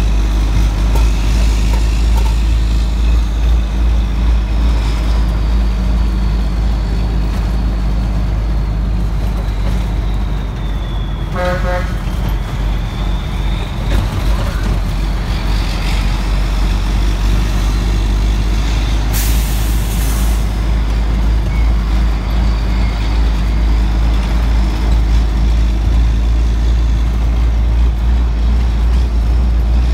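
Cabover dump truck's Detroit 12.7 diesel engine running steadily on the road, with a high whine that rises and falls. A short horn toot comes about a third of the way in, and a brief hiss of air about two-thirds through.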